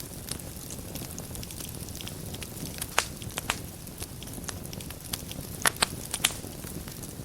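Wood fire burning in a fireplace: a steady low rumble of flames with frequent sharp crackles and pops, the loudest pop about three seconds in and a quick cluster of pops near the end.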